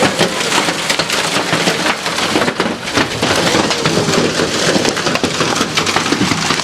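Heavy hail and rain pelting down in a thunderstorm: a loud, steady, dense clatter of countless small impacts.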